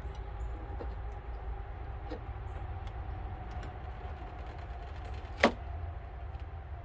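Dental floss being worked through the double-sided tape behind a factory truck emblem: faint rubbing over a low steady rumble, with one sharp snap about five and a half seconds in.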